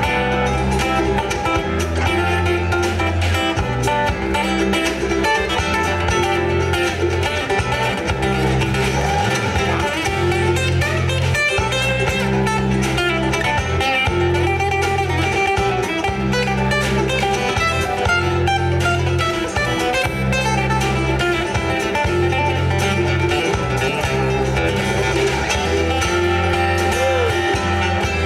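Bluegrass band playing live: acoustic guitar and mandolin over electric bass, with the bass moving in held notes every second or two.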